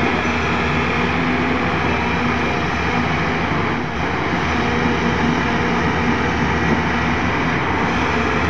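JCB JS205 hydraulic excavator's diesel engine running steadily, with an even, unchanging drone.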